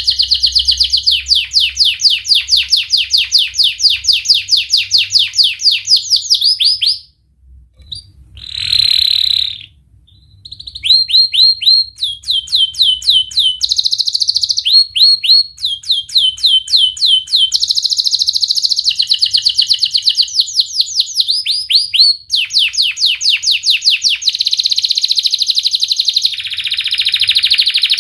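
Domestic canary in full song: long trills of fast, sharp repeated 'wit wit' notes, each phrase switching to a different note type, with a short break about seven seconds in.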